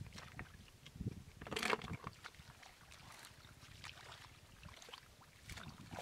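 Hands and bare feet splashing and sloshing in shallow muddy water, with one louder splash about a second and a half in.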